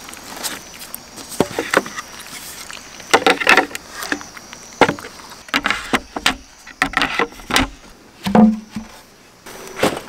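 Wooden slatted folding low table being unfolded and set up: irregular wooden knocks and clatters as the hinged frame and slats are moved, with a duller thump about eight seconds in.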